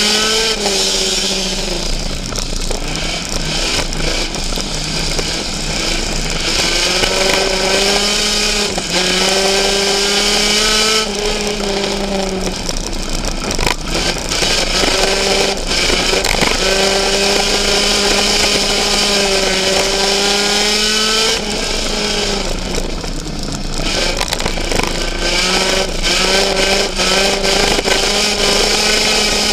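Race car engine at racing speed, heard from inside the cockpit: it holds a high, steady pitch along the straights and drops three times, about every ten seconds, as the driver lifts for the turns, then climbs again under throttle.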